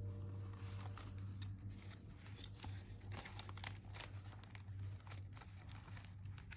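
Paper and stationery being handled: scattered soft clicks and rustles over a low steady hum.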